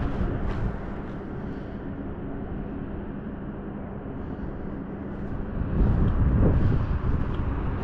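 Wind buffeting the microphone, stronger near the start and again around six seconds in, over a steady low hum.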